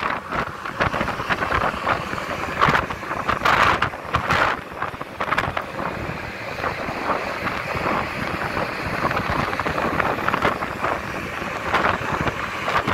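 Wind buffeting the microphone over a steady rushing of air and water aboard a passenger ferry under way, with irregular louder gusts, more of them in the first half.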